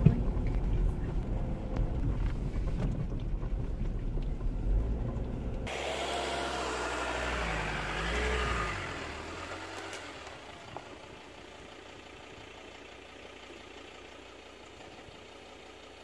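A vehicle driving, with a deep rumble of engine and road noise. About six seconds in it cuts off abruptly to a higher, wavering engine sound, which fades over a few seconds to a quiet background.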